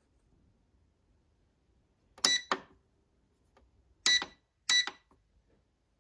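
OCOO food dehydrator's control panel beeping as its buttons are pressed: one short high beep about two seconds in, then two more about half a second apart near the end.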